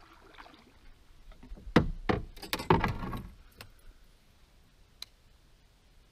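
Two sharp knocks, then a brief clatter, as a canoe paddle is set down against the canoe's hull among the fishing gear. A single faint tick follows a few seconds later.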